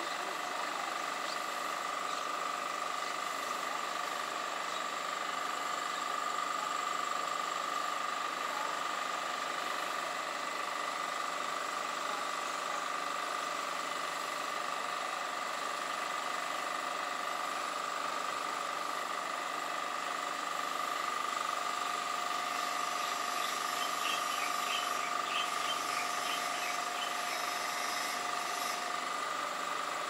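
Steady outdoor background noise with several continuous high-pitched tones, and a few faint short chirps in the last third.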